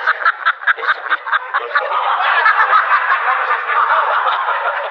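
Exaggerated comic sobbing: a run of quick gasping sobs, about five a second, turning after about two seconds into a continuous wail.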